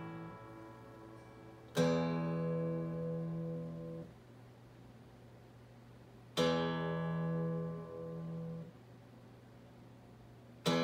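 Solo acoustic guitar: a chord strummed about two seconds in, left to ring and then damped after about two seconds; a second chord strummed a little past six seconds and damped near nine seconds; a third strummed right at the end.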